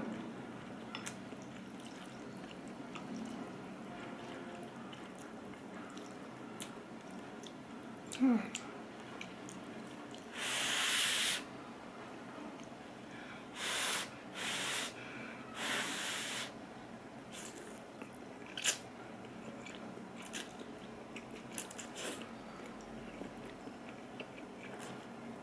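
Eating instant ramyeon up close: quiet chewing with small mouth and chopstick clicks, and airy hissing bursts at the mouth, one long one about ten seconds in and three shorter ones a few seconds later.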